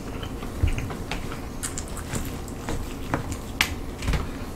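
Eating sounds: scattered clicks and scrapes of a plastic fork and knife cutting crispy fried chicken in a plastic takeout tray, with chewing and a couple of soft thumps.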